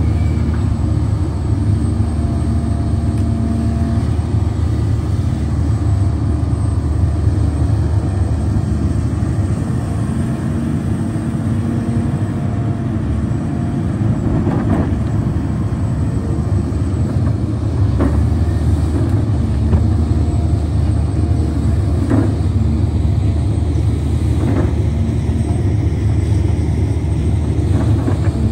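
Hidromek HMK 310 LC crawler excavator's diesel engine running steadily under load as it digs. A few short knocks from the digging break in over the second half.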